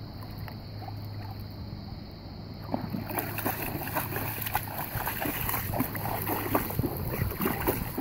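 A golden retriever wading through shallow seawater, its legs splashing as it walks; the splashing starts about three seconds in and comes in quick irregular strokes that get louder.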